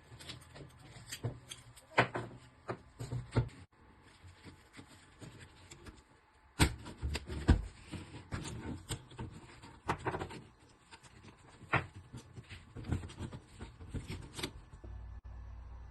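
Irregular clicks and knocks of a rifle and its sling being handled while the sling is fitted, with a quieter pause partway through.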